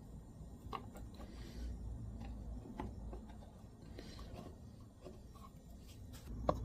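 A 3/8-inch wood chisel scraping dried glue squeeze-out from the inside corners of a wooden box: two faint scrapes with a few light ticks of the steel against the wood.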